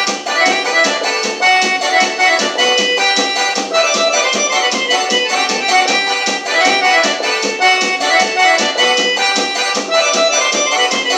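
Electronic keyboard playing an accordion-voiced melody, the introduction of a song, over a steady rhythm accompaniment.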